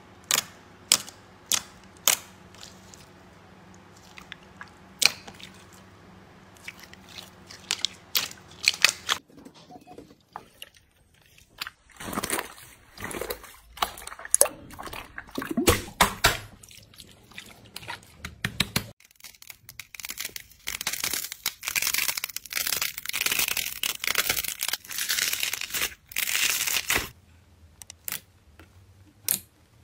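Hands pressing, squeezing and poking jelly-like slime. Sharp single pops and clicks come first, then wet squelching, and from about twenty seconds in a dense crackle that lasts several seconds. Single pops return near the end.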